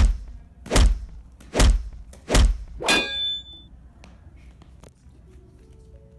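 Five hard chopping blows in a steady rhythm, about one every 0.8 seconds, each a heavy thunk; the fifth clangs with a brief metallic ring. A staged sound of a body being chopped up.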